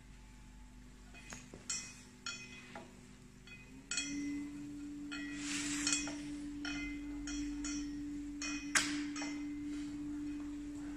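Steel-roller laminator running with a steady motor hum that grows louder about four seconds in, accompanied by scattered light clinks and ticks.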